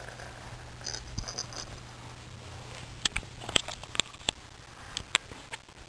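Scattered light clicks and rustles of close handling, with a brief high tinkling about a second in, over a faint steady low hum.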